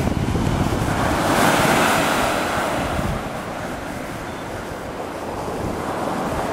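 Small surf breaking and washing up a sandy beach, swelling louder about one to two seconds in, with wind rumbling on the microphone.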